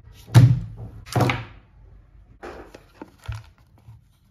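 Two loud thuds with short ringing tails, followed by several fainter knocks.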